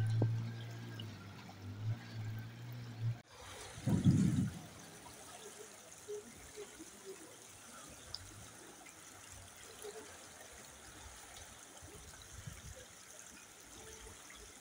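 Floodwater flowing and splashing along a street, a steady rushing. A low steady hum runs under it for the first three seconds and cuts off suddenly, and there is a brief loud low thump about four seconds in.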